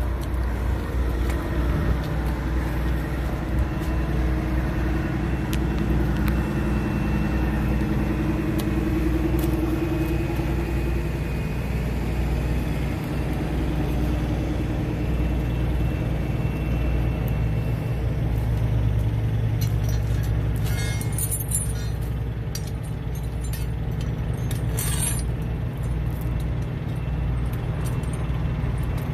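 Semi-truck diesel engine idling with a steady low rumble. Twice, about 21 and 25 seconds in, steel tire-chain links rattle briefly as the chain is pulled across the drive tires.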